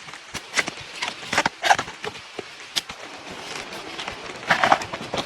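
Raindrops falling on bamboo leaves, making a steady rustling patter with irregular sharper taps. A denser, louder flurry of hits comes near the end.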